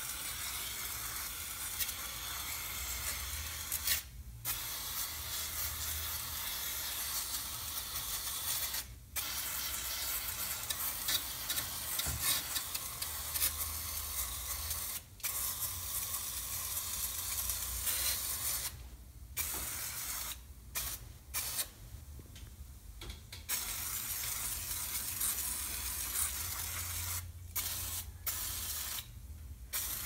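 Aerosol can of foaming air-conditioner coil cleaner spraying onto the cooling fins in long hissing bursts, with brief pauses between them and several short bursts close together in the second half.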